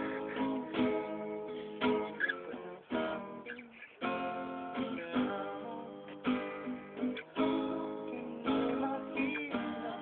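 Acoustic guitar being strummed, chord after chord, with a short break about three seconds in before the strumming resumes.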